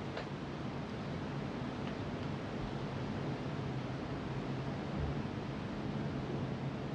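Steady hiss with a low, even hum beneath it, and a faint click just after the start.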